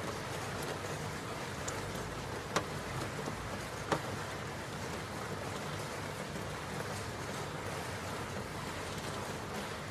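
Steady rain falling, an even hiss with scattered drop ticks and two sharper drop clicks a second and a half apart.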